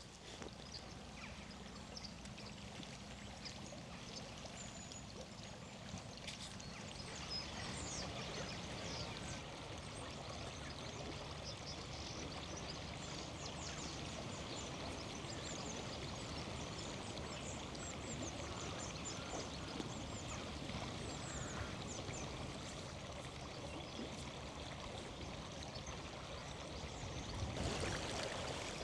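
Faint, steady rush of flowing river water, with scattered small high ticks over it.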